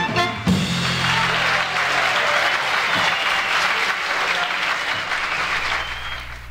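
Audience applauding on a jazz record played back on a turntable, rising just after the band's final notes and fading out near the end.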